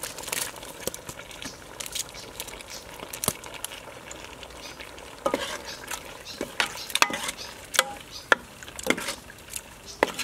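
Metal ladle stirring fish through a thick sauce in a metal pot, with irregular clinks and scrapes of the ladle against the pot.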